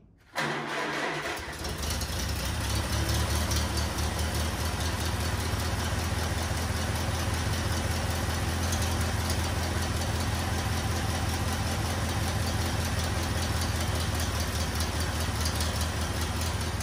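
Engine running at a steady speed with even firing pulses, cutting in abruptly about half a second in.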